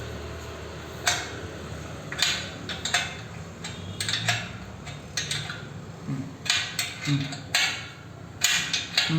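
Irregular metallic clinks and knocks of steel rack parts, bolts and hand tools being handled while the lat pulley of a power rack is fitted, about a dozen sharp strikes spread unevenly.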